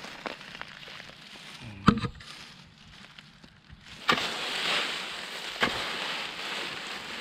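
Dry leaf litter rustling and crackling as it is raked back, with a sharp knock about two seconds in and another at about four seconds, then steadier rustling.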